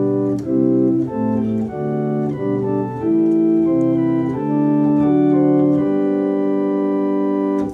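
Viscount Sonus 60 Physis digital organ, physically modelled, playing the choir manual's 8-foot Gedackt flute with the 4-foot stop added on top. It plays a chordal passage of sustained chords that change every half second or so, then settles into longer held chords. The sound cuts off near the end.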